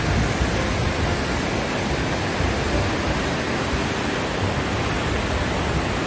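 Dynjandi waterfall and its white-water cascades: a steady rush of falling and tumbling water with a strong low rumble.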